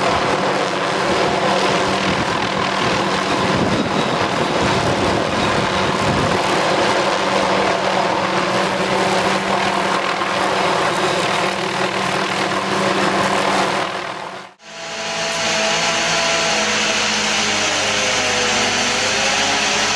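Steady engine noise of logging machinery, cut off suddenly about two-thirds of the way through and replaced at once by another steady engine sound with a wavering whine.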